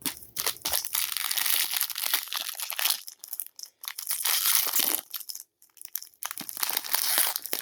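Trading-card pack packaging crinkling and rustling as it is handled and worked open, in uneven spells with a brief pause a little past the middle.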